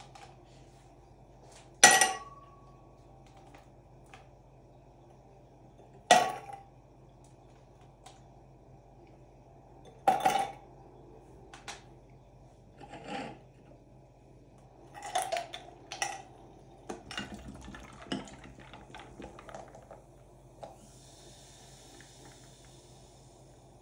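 Ice cubes dropped into a glass: three loud sharp clinks about four seconds apart, then smaller knocks and a quicker rattling run a few seconds later. Near the end a faint fizzing hiss from the carbonated drink in the glass.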